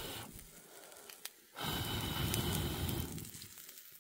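A person blowing hard on a small wood cooking fire to liven it, twice in long breaths, the second lasting about a second and a half.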